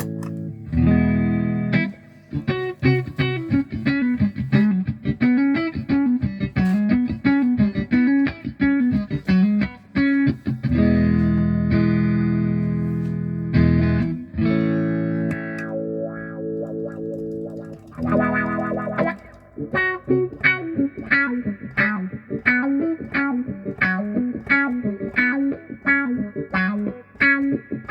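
Electric guitar played through a Vox 846 hand-wired wah pedal with some distortion: choppy chords, the wah sweeping up and down in a steady wave, a held chord in the middle, then the riff again. The wah is set for more low end and less high end, a warmer tone with less sweep and less clarity.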